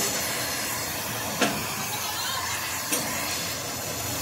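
Steady broad workshop hiss with two sharp metal clanks about a second and a half apart, the second fainter, from rough-cast gears hanging in crane chains as they are handled.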